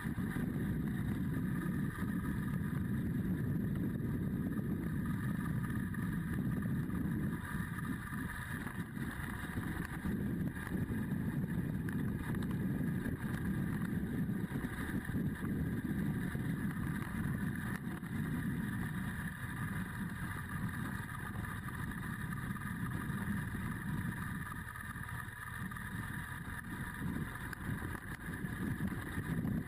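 Adventure motorcycle's engine running steadily as the bike rides along, heard from a camera mounted on the bike, with a slight dip in level near the end.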